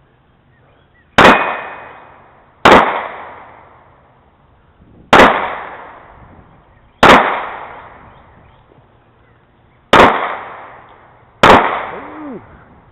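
Six handgun shots at uneven intervals, each followed by a long decaying echo, fired during a combat pistol drill.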